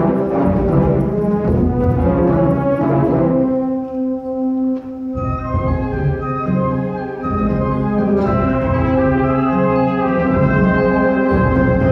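Symphonic wind band playing, with brass to the fore: dense full-ensemble passage that thins to one held low note about four seconds in, then builds into long sustained chords.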